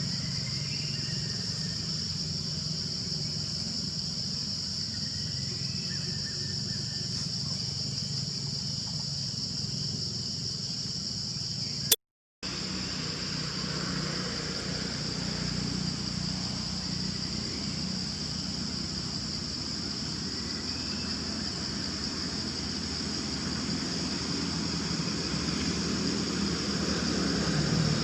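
Outdoor ambience: a steady high-pitched insect drone over the low rumble of motor traffic, the rumble swelling near the end as a vehicle passes. About twelve seconds in there is a sharp click and a brief dropout.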